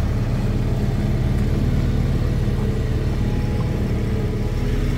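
Motorboat engine running steadily while the boat cruises, a constant low hum with no change in pitch.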